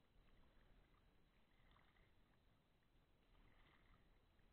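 Very faint kayak paddle strokes in calm water: two soft splashes about two seconds apart over near silence.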